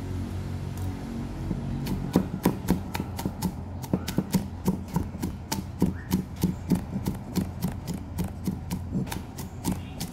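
Cleaver chopping garlic cloves on a round wooden chopping block: quick, even knocks at about five a second, starting about two seconds in.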